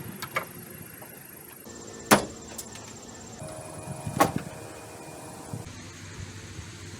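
Hand tools knocking and clicking against metal under the hood: a few sharp knocks, the loudest about two seconds in and another about four seconds in, over a low steady hum.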